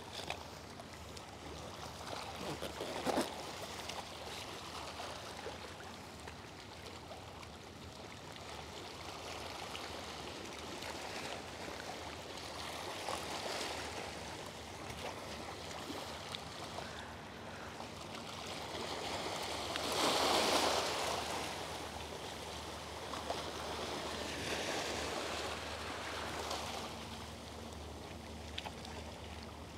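Small sea waves washing and lapping over shoreline rocks, swelling and easing, with the biggest wash about two-thirds of the way through.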